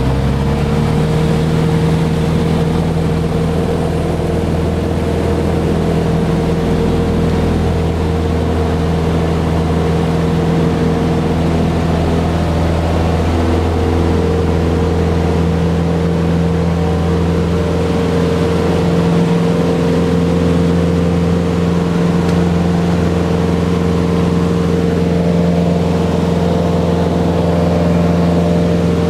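Cessna 150's Continental O-200 four-cylinder engine and propeller heard from inside the cockpit, coming up to full power about half a second in and then running steadily at takeoff power through the takeoff roll and climb-out.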